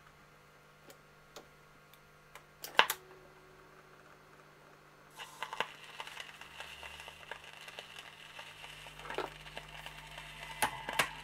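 Small clicks and knocks of a record being handled on a turntable platter, with one sharp click about three seconds in. From about five seconds in the stylus is in the groove of a 4-inch 33 rpm record, and steady surface hiss and crackle run with occasional ticks before the music starts.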